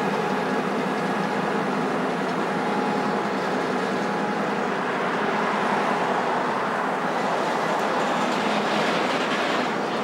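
Several diesel freight locomotives rolling slowly past, their engines running steadily under the noise of wheels on rail.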